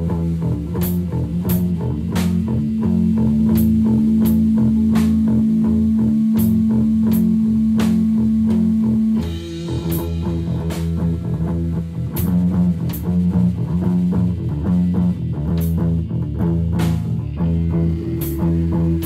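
Rock music with electric guitar and bass guitar over a drum kit. A low note is held for several seconds and breaks off about nine seconds in.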